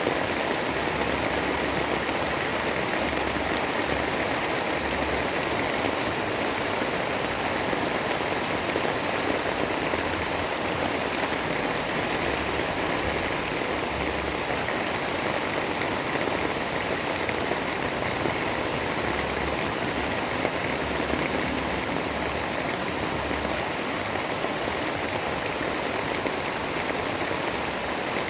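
Steady, dense rain noise with no change in level, part of a storm ambience.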